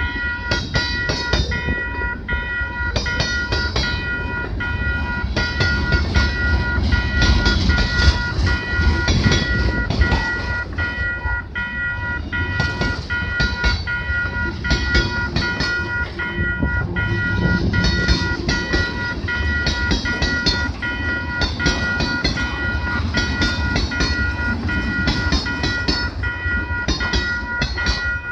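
Mixed freight cars rolling past at a level crossing: a steady rumble of wheels with clickety-clack over the rail joints. A crossing bell rings steadily over it.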